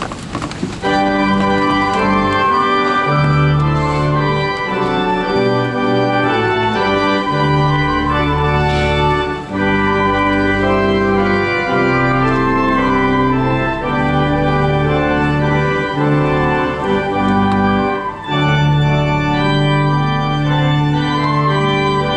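Church organ playing a hymn in slow, held chords, starting about a second in.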